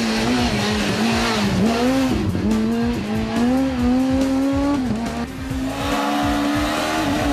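Renault Clio Super 1600 rally car's engine running hard at high revs, its pitch climbing and falling back with short dips at the gear changes, around two seconds in, around five seconds in and near the end.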